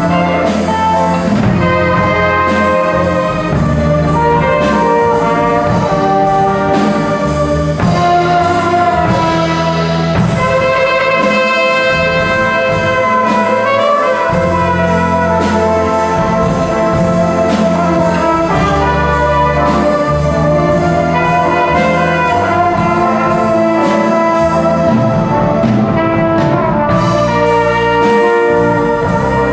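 Small jazz band playing: trumpet, trombone and saxophone in held horn lines over bass, guitar, keyboard and drums, with a steady cymbal beat.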